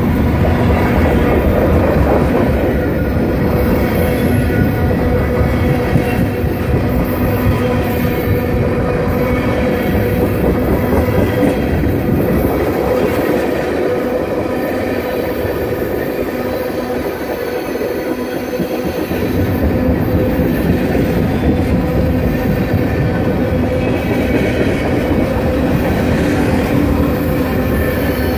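Freight train of railroad tank cars rolling past close by: a continuous rumble and clatter of steel wheels on rail, with a steady whine running through it. The low rumble eases for a few seconds about halfway through, then comes back.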